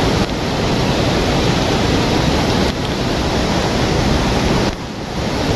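Waterfall and the rain-swollen torrent below it in full spate: a loud, steady rush of water, dipping slightly in level a few times.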